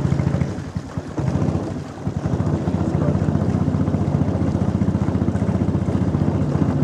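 Small boat motor pushing a wooden canoe, running with a fast, even pulsing. It drops in level for about a second and a half near the start, then runs steadily again.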